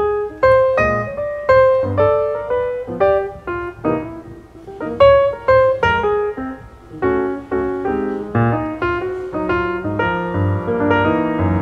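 Background piano music: a melody of separate notes, about two a second, growing into fuller chords over a low bass in the second half.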